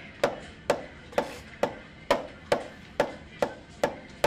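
Wooden drumsticks striking a drum practice pad in a steady beat, about two hits a second, each a sharp crack with a short ring.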